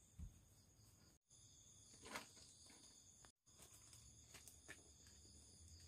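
Near silence with the faint, steady high chirring of night insects, a soft tap about two seconds in, and the sound cutting out completely twice for a moment.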